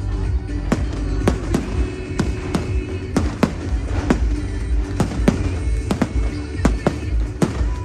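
Fireworks display: a quick series of sharp bangs from bursting aerial shells, roughly two a second, over a continuous low rumble. Music plays underneath.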